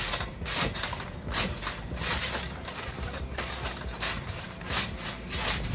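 Trampoline mat and springs under someone jumping: a steady run of bounce thumps, about two a second.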